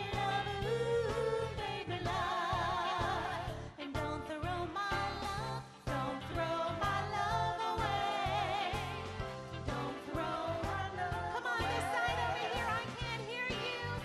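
Female vocal group singing live with a band: a lead voice and harmonised backing voices holding long notes with vibrato, over keyboards, drums and electric guitar with a steady beat.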